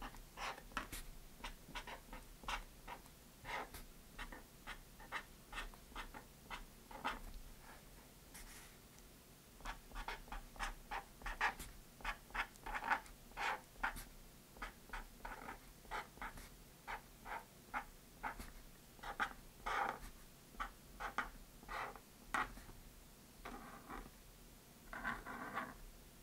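Pen writing on a cardboard gift box: a long run of short strokes of the nib on the card, one after another, with a short gap about eight seconds in and a few longer drawn strokes near the end.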